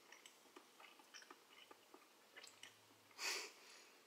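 Quiet chewing of a mouthful of baked stuffed flounder: faint scattered wet clicks and mouth sounds, with a short breath about three seconds in.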